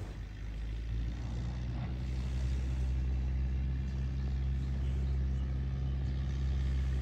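A low, steady engine hum, growing louder over the first second or two and then holding even.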